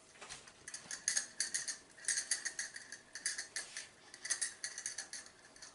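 Dry spice rub rattling inside a glass shaker jar as it is shaken over meat, in about five bursts of quick rattles.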